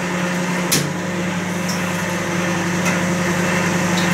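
Noodles being eaten with a fork from a bowl: a few light clicks of the fork against the bowl, heard over a steady low hum.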